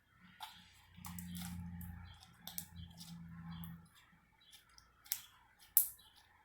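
White slime being worked by hand, giving a run of sharp, irregular clicks and pops, the loudest near the end. A low steady hum sounds underneath for about three seconds near the start.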